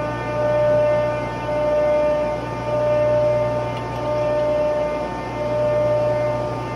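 Steady hum of running machinery, with a whine that swells and fades about once a second.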